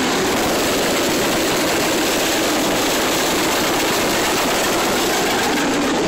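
Steady rush of wind and tyre noise from a Pontiac Sunfire driving on a wet road, with the microphone held out of the window so that the passing air buffets it.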